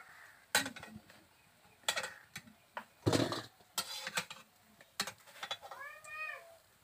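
A metal slotted spoon clinking and scraping against an iron kadai and a steel bowl, in a string of separate clanks, as fried jaggery pitha are lifted out of the oil.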